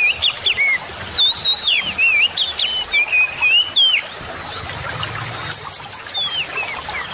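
A songbird singing a rapid run of slurred whistled notes that sweep up and down. It pauses about four seconds in and starts again near the end, over the steady rush of the river.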